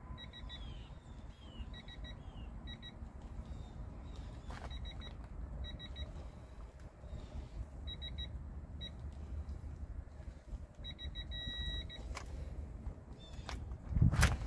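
High electronic beeps in short clusters of two or three, then one longer steady beep about eleven seconds in, typical of a digital torque wrench signalling that the kingpin cap screws are reaching and hitting the set torque of 188 foot-pounds. A steady low rumble runs underneath, and a loud knock comes near the end.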